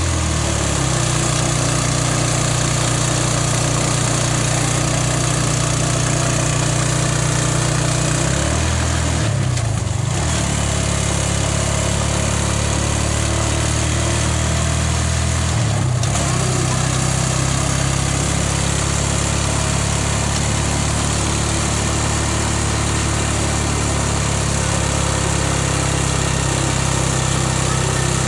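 The engine of a small vehicle running steadily while travelling, with steady wind and road hiss. The engine note shifts in pitch twice, about nine and sixteen seconds in.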